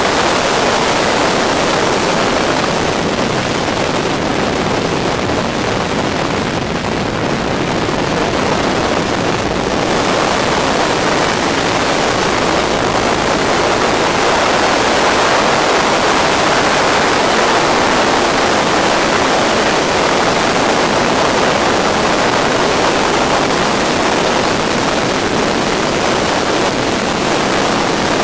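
Steady rush of wind and engine noise in the open cockpit of a de Havilland Tiger Moth biplane in flight, with no separate engine note standing out, swelling slightly about halfway through.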